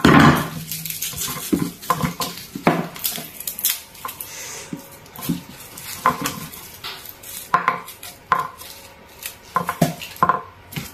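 Kitchen dishes and utensils clattering and clinking as they are handled: irregular knocks and taps, some ringing briefly, the loudest right at the start.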